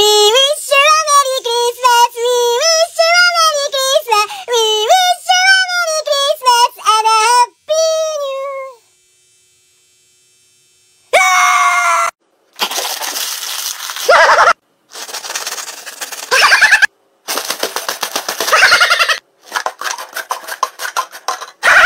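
A high-pitched voice sings a wordless 'do do do' tune for about nine seconds and stops. After a short silence comes a run of short, harsh noisy sounds and voices, chopped off abruptly one after another.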